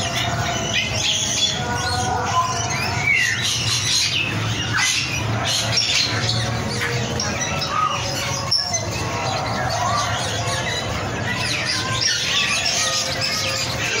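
Many caged birds calling at once: a dense, unbroken chorus of overlapping chirps and squawks, over a steady low hum.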